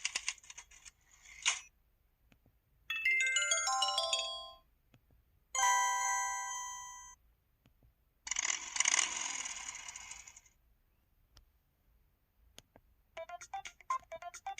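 LG-KU2800 mobile phone's built-in alert tones played one after another with short gaps. First comes a brief clicky burst, then a quick run of electronic notes, then a chime chord that dies away, then a noisy buzzing burst. Near the end a rapid repeating beep pattern starts, the missed-call alert.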